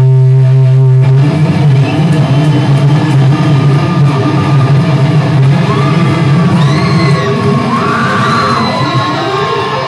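Amplified electric guitar played live: a held low note that breaks off about a second in into busier playing, with yells from the crowd over it.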